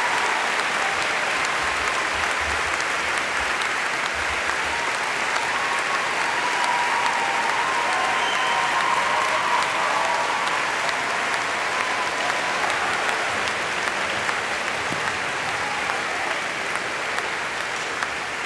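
Audience applauding steadily, a dense sustained clatter of many hands clapping at the close of a speech.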